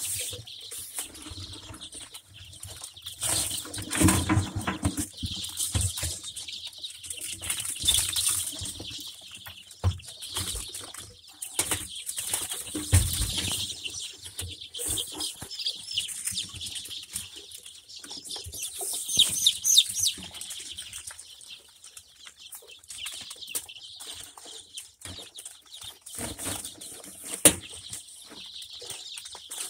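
A brood of week-old ISA Brown sex-link chicks peeping in many short, high chirps, with scuffling and wing-fluttering among them. Two dull thumps come about four and thirteen seconds in.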